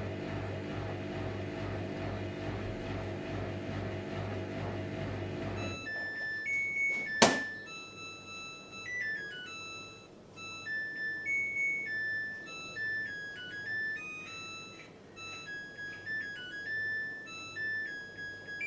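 Samsung Eco Bubble washing machine's motor and drum running with a steady pulsing hum that stops about six seconds in. A sharp click follows, then the machine's electronic buzzer plays its beeping end-of-cycle tune, signalling the wash has finished.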